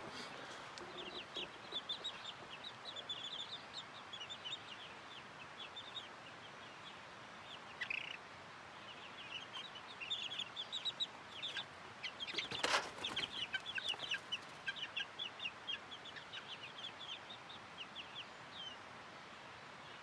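Young chickens, about five weeks old, peeping in many short, high calls in quick runs. One brief knock sounds about two-thirds of the way through.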